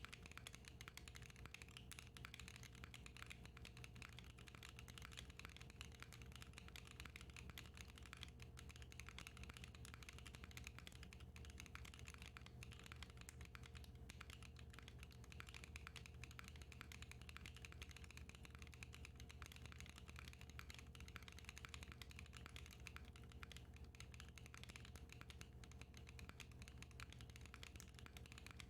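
Continuous fast typing on a Matrix 6XV 3.0 Corsa mechanical keyboard with lubed Hera switches, an aluminium plate, GMK keycaps and no foam inside the case: a steady run of keystroke clicks and clacks without pauses.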